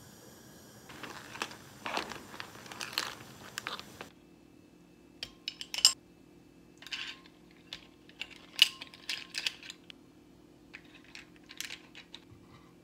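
Clam shells clinking and clattering against a ladle and a ceramic bowl as steamed clams are ladled out. First there is a dense rattle for a few seconds, then scattered sharp clinks.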